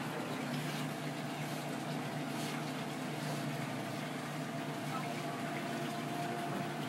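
Steady kitchen background noise: a constant low machine hum under a running hiss, with faint voices in the background.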